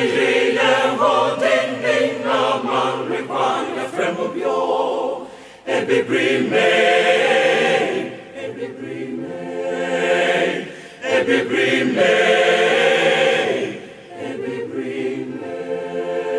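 A choir singing in several voices, in long phrases with short breaks between them.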